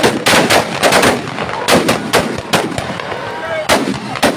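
Firecrackers packed into a burning Dussehra effigy going off in rapid, irregular bangs over a steady crackle. The bangs are dense at first and grow sparser toward the end.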